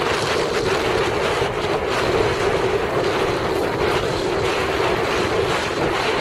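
Steady rush of wind buffeting the microphone, with water washing past a Laser dinghy under sail.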